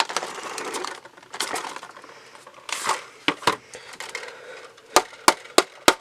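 Cardboard packaging box being handled and pried at: scraping and rubbing of cardboard, then a run of sharp clicks about three a second near the end.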